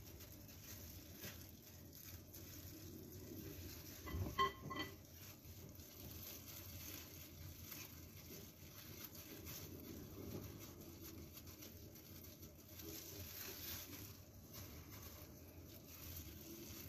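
Faint rustling and patting of disposable plastic gloves handling a nori-wrapped sushi roll on a bamboo rolling mat, with a brief squeak about four seconds in.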